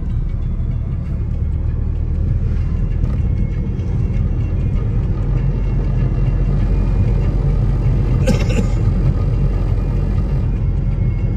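Car cabin noise while driving: a steady low rumble of engine and tyres on the road, with a brief sharp noise about eight seconds in.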